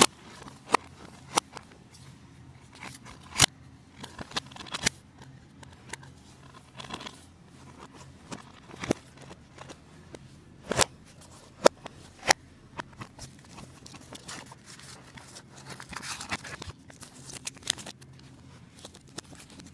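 Handling noise: irregular sharp clicks and knocks with soft rustling, as a phone and plastic DVD cases are moved about on a blanket.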